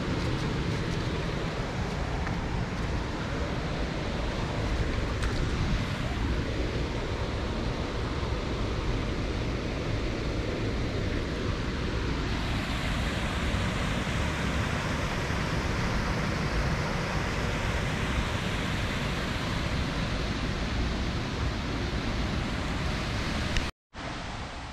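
Shallow river water running over rocks and gravel, a steady rushing. It cuts out briefly near the end and comes back quieter.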